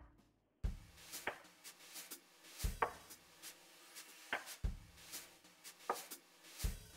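Slow, even knocking: a soft low thump about every two seconds, with lighter, sharper clicks falling between them.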